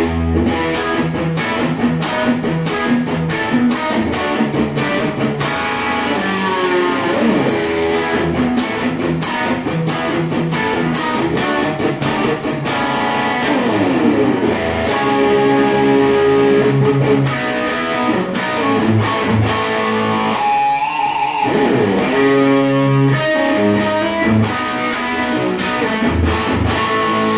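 Suhr Standard Plus electric guitar being played: a continuous run of picked notes and chords, with notes sliding in pitch at several points.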